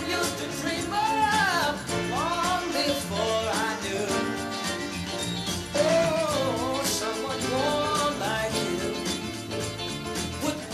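A song plays, a singing voice over instrumental backing.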